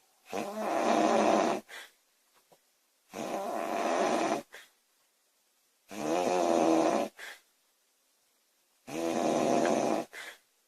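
A woman snoring loudly in her sleep. There are four snores about three seconds apart, each a little over a second long and followed by a short breath.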